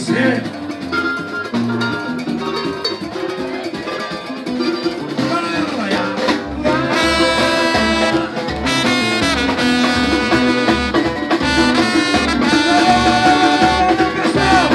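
Live samba band playing. About halfway through it comes in fuller and louder, with a steady low drum beat.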